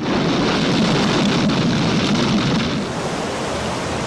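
Torrent of water bursting out through a concrete dam: a steady rushing of water that eases slightly just before three seconds in.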